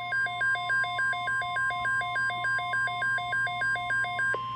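Weather-radio alert tones: a steady single-pitch tone near 1 kHz, the NOAA 1050 Hz warning alarm that announces an alert, under an electronic beep that alternates between a low and a high pitch about four times a second. The beeping stops with a click near the end while the steady tone runs on.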